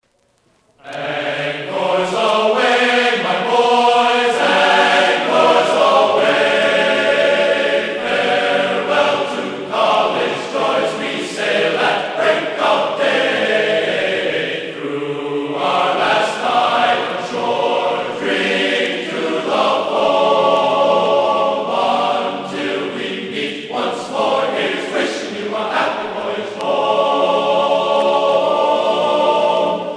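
Background choral music: a choir singing slow, sustained chords, starting about a second in.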